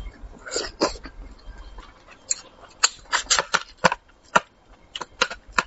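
Close-miked eating sounds from a spicy braised fish: wet lip smacks, sucks and clicks as the flesh is bitten and picked off, about a dozen sharp, irregular ones, most crowded in the middle.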